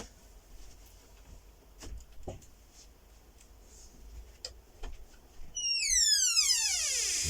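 A few faint, scattered clicks, then a loud whistle-like tone with many overtones that falls steeply in pitch for almost two seconds and cuts off suddenly.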